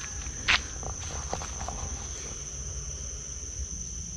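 Insects trilling in a steady high-pitched drone over a low rumble, with one sharp click about half a second in and a few fainter clicks soon after.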